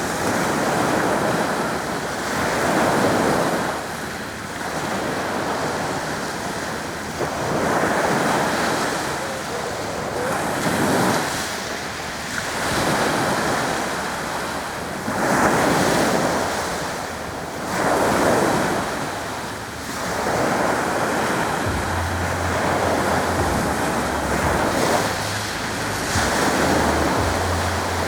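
Sea waves washing onto the shore, the surf swelling and falling every two to three seconds, with wind rumbling on the microphone in the second half.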